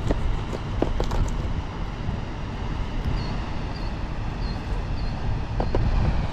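Steady low rumble of wind on the microphone over a fast-running river current. A few light clicks of a knife cutting bait on a plastic tackle box come in the first second and once near the end, and a short high chirp repeats about five times midway.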